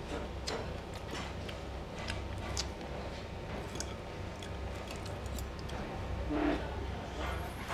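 Chewing a crunchy side salad up close, with scattered small crunches and clicks.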